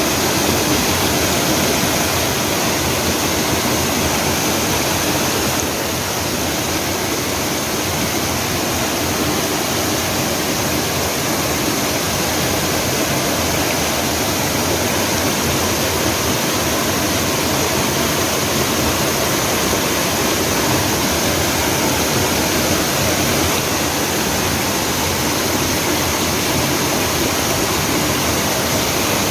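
Mountain stream water rushing and splashing over mossy rocks and small falls, a steady loud rush with no let-up.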